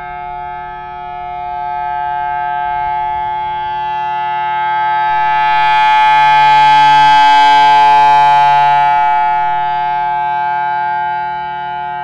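Federal Signal Thunderbolt outdoor warning siren sounding a steady, unchanging tone for a test. Its horn rotates, so the sound swells to its loudest about halfway through as the horn faces the listener, then fades as it turns away.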